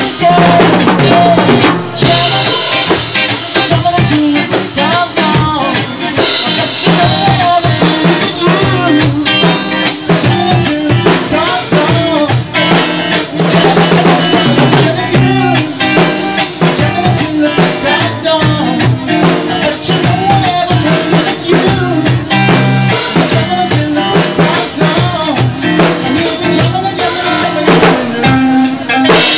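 Loud live rock band jam: electric guitar with a drum kit keeping a steady beat.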